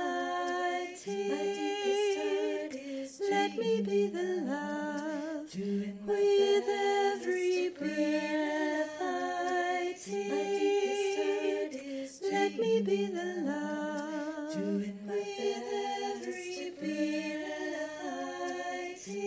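A woman's voice singing a cappella, layered on a looper: a repeating looped vocal part with a second harmony part sung over it, several voices at once with no instruments.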